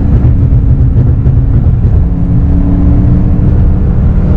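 BMW E92 M3's 4.0-litre V8 with an Akrapovič exhaust running at a steady pace under way, heard from inside the cabin along with a low road rumble; the engine note shifts slightly about halfway through.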